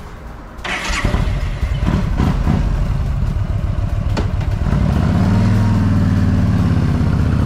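Yamaha V Star 1300's V-twin engine running: it comes in about a second in, is blipped a few times, then holds a steadier, stronger note from about five seconds in.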